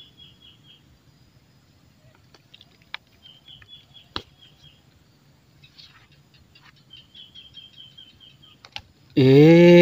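A bird calling in three runs of quick, high, repeated chirps, with a few scattered sharp clicks. About nine seconds in, a man lets out a loud drawn-out call.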